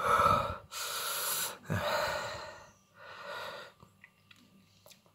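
A man breathing hard through his mouth, four heavy breaths that get quieter, panting against the burn of a superhot chilli.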